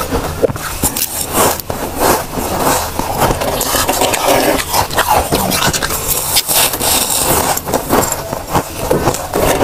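Metal spoon scraping up flavoured freezer frost from a tray, and the frost crunching as it is bitten, in a dense run of short crackles and scrapes.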